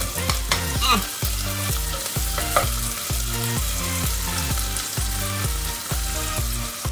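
Garlic, onion and ginger sautéing in hot oil in a pan, sizzling steadily while being stirred.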